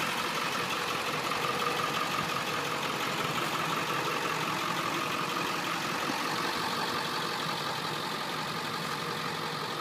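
Ford F-350's 7.3-litre Powerstroke turbo-diesel V8 idling steadily.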